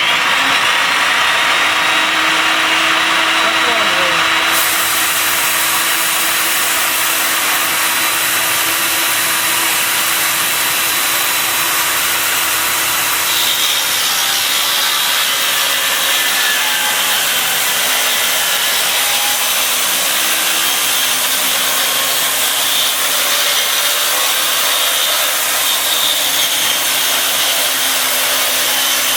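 Table saw ripping a half-inch acrylic (plexiglass) sheet: a loud, steady whine and hiss of the blade cutting the plastic, fed slowly so the plastic doesn't melt. The sound grows brighter and harsher a few seconds in and again about halfway through.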